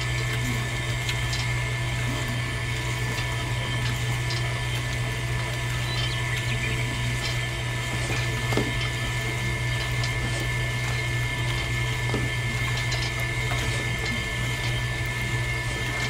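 Small electric motor running steadily, belt-driving a miniature machine: a constant low hum with a thin steady whine above it. A few faint light taps sound over it.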